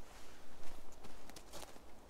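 Footsteps crunching through twigs and needle litter on a forest floor: several crackling steps, the loudest about one and a half seconds in.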